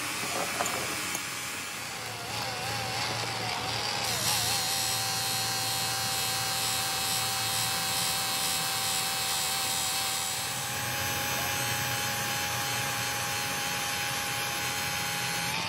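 Electric grinder with a buffing wheel running against a chrome hydraulic cylinder rod, polishing it: a steady motor whine over a rubbing hiss. The whine wavers in pitch for the first few seconds, then holds steady.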